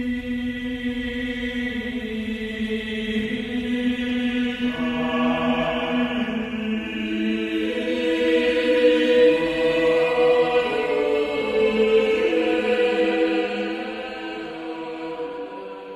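A choir chanting in long held notes that move slowly from pitch to pitch, fading out near the end.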